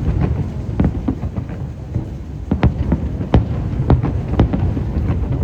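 Fireworks display: aerial shells going off one after another, about a dozen sharp bangs over a continuous deep rumble.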